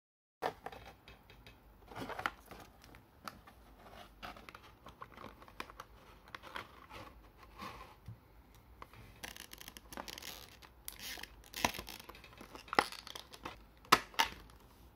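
Thin plastic blister tray and cardboard packaging being handled: irregular crinkling and rustling with sharp clicks and snaps, the loudest of them in the last few seconds.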